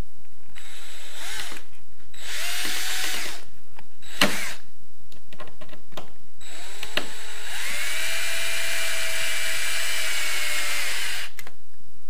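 Cordless drill-driver driving a screw through a wooden trim strip overhead. It gives a few short whirring bursts that rise in pitch as the motor spins up, with a sharp click about four seconds in, then runs steadily for about four seconds.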